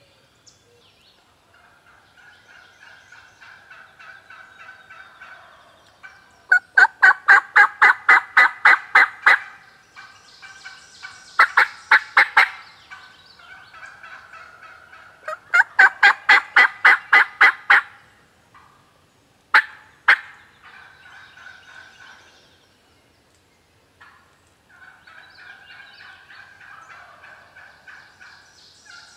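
Turkey yelping: three long runs of sharp, evenly spaced notes at about four a second, then two single notes, with fainter calling between the runs.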